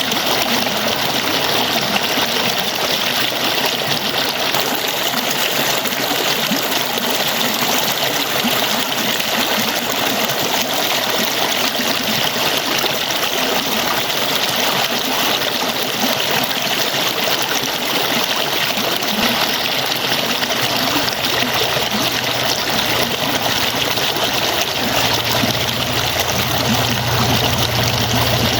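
Water falling and splashing steadily, a continuous even rush, with a low rumble coming in during the last few seconds.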